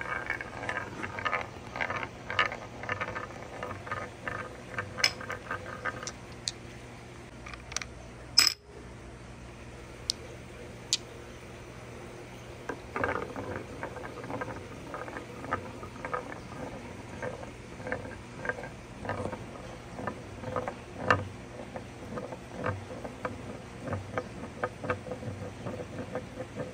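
Glass marbles rolling around a carved wooden spiral bowl, a fast, uneven rattle of clicks as they circle the grooved wood. A marble rattles for the first six seconds, a single sharp knock comes about eight seconds in, and after a quieter spell a second marble starts rattling around again.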